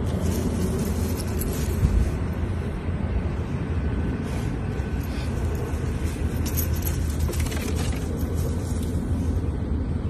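Steady low rumbling noise with no distinct events.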